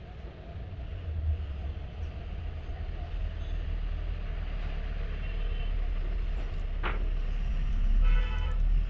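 Steady low rumble of motor vehicle engines, with one sharp click about seven seconds in.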